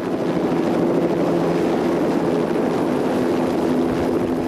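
Light helicopter running steadily as it lifts and climbs away with a crate slung beneath on a long line: a steady hum from the rotor and engine under a rushing noise.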